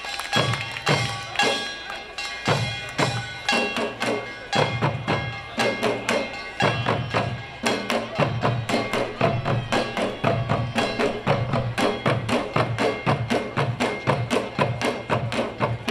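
Korean pungmul percussion troupe playing janggu hourglass drums and buk barrel drums together: a fast, driving rhythm of sharp drum strokes that grows denser in the second half.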